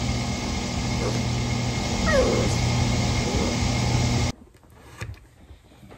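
Young puppies whimpering and yipping, the clearest a single falling whine about two seconds in, over a loud steady rushing noise that cuts off abruptly about four seconds in.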